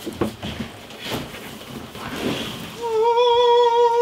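A man sings one long held note, loud and steady, starting about three seconds in, as a joking show of his singing voice. Before it, faint knocks and rustles of a cardboard box being handled.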